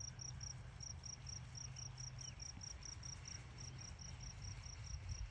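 A cricket chirping steadily, about six short high-pitched chirps a second, with a brief pause about half a second in.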